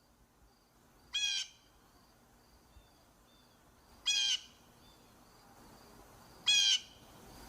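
Blue jay calling: three short calls about two and a half seconds apart.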